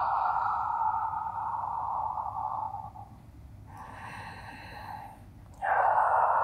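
A woman breathing audibly in time with a slow spine roll: a long breath out, a quieter breath in about three seconds in, then another breath out starting sharply just before the end.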